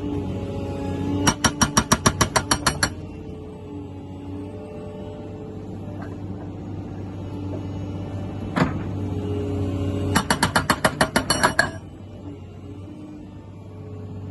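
Montabert excavator-mounted hydraulic breaker firing in two short bursts of rapid blows, about eight a second, with a single knock between the bursts. A steady low hum runs underneath.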